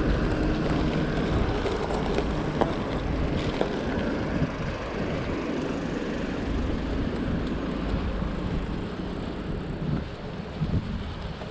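Wind buffeting the microphone and road rumble on a moving hybrid bike, with motor-vehicle noise that fades over the first several seconds. A few light knocks near the end.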